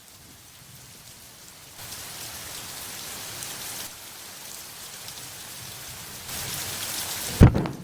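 Rain falling steadily, heavier from about two seconds in, then a sudden sharp thunderclap near the end.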